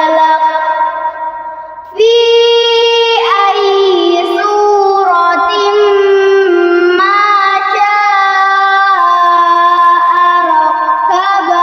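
A young girl's voice chanting the Quran in melodic murottal recitation, holding long drawn-out notes that bend slowly in pitch. One phrase fades out and a new one starts about two seconds in, running on in one long breath before the next phrase begins near the end.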